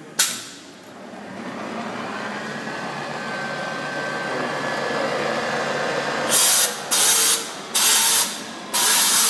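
Spindle of a Bridgeport Explorer I CNC vertical mill spinning up in high range toward about 1900 RPM, its whir growing steadily louder, after a short sharp hiss just at the start. Near the end come several loud, short hissing bursts about a second apart.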